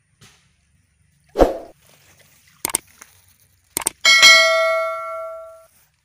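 Edited-in subscribe-button sound effects: a thump, then two sharp mouse clicks, then a bell-like notification ding that rings out and fades over about a second and a half.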